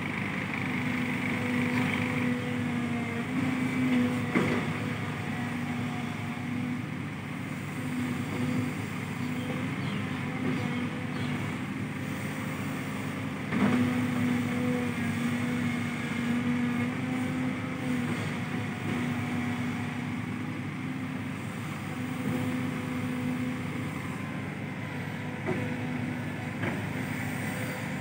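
Caterpillar 313D2 GC excavator's diesel engine running steadily as it digs and loads earth into a dump truck. A sharp knock comes about halfway through, with a smaller one about four seconds in.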